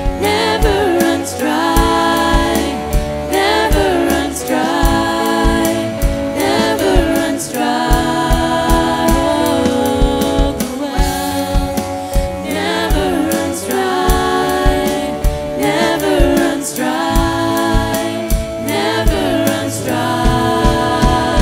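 Christian worship song: singers over a band with a steady drum beat.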